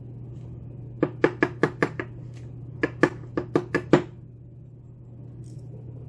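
Two quick runs of light clicking taps, about six in each, as metal tweezers handle the lock's small pins and springs over a wooden pin tray.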